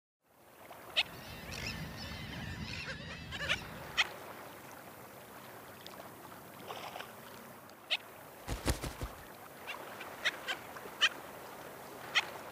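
Nesting colony of waterbirds calling: a jumble of overlapping short squawks and sharp cries. A brief low rumble comes about eight and a half seconds in.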